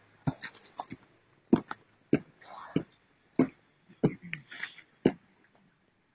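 A series of sharp, irregular knocks and clicks, about one every half second, with faint murmur between them.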